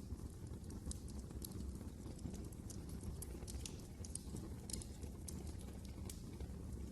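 Fireplace fire crackling: irregular sharp pops and snaps over a steady low rumble of the flames.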